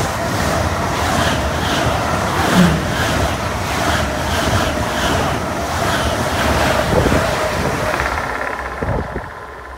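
DB ICE high-speed train running through a station close by: a steady rush of wheel and air noise with a regular beat as the coaches' wheelsets pass, falling away near the end.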